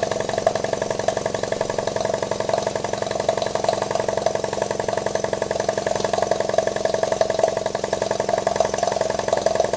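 Double-acting uniflow-type model steam engine running steadily on live steam, a fast, even rhythm of beats from its exhaust and moving parts.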